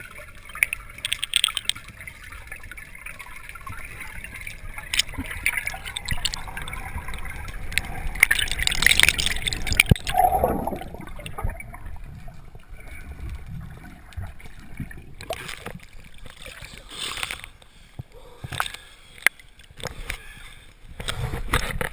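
Water gurgling and bubbling, heard through an underwater camera, with irregular clicks and knocks. In the second half it turns to splashing and sloshing as the camera comes up to the surface.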